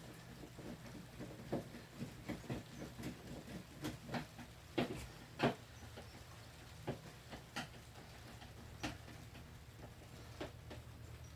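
Irregular clicks and knocks of hands and tools working on a disassembled electronic keyboard's plastic casing and screws, the loudest a few knocks about five seconds in, over a steady low hum.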